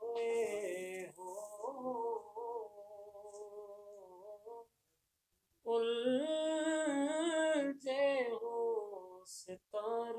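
A man singing an Urdu naat unaccompanied, holding long, wavering drawn-out notes. He breaks off for about a second near the middle, then takes up the line again.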